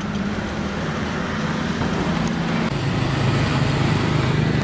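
Road traffic and a vehicle engine: a steady running hum with a low drone that drops slightly in pitch near the middle.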